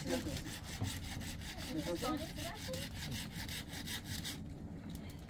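Rhythmic rasping strokes, about three or four a second, stopping about four seconds in.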